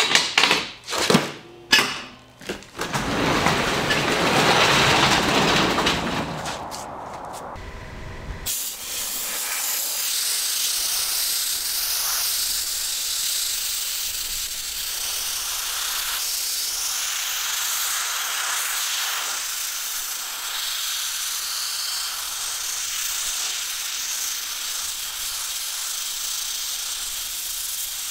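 Aerosol spray can hissing steadily, with small swells, as gray primer is sprayed onto a rusty rear axle tube and leaf spring perch. It is preceded by several sharp knocks and a few seconds of rumbling noise.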